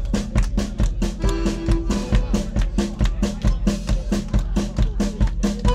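A live rock band playing an up-tempo song, with the drum kit keeping a steady, even beat under electric guitar and bass. The accordion's sustained chords come in right at the end.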